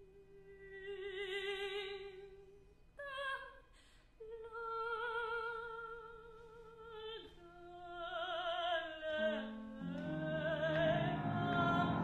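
A woman's voice singing long, held notes with wide vibrato in contemporary classical style, in a few separate phrases, the later ones higher. From about nine seconds in, other ensemble instruments join beneath her with lower notes, and the sound grows fuller and louder.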